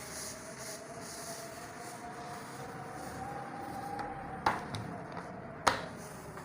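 Two sharp knocks a little over a second apart, a hand iron being set down on the ironing surface while pressing a zipper seam, over a faint steady tone that slowly rises and falls in pitch.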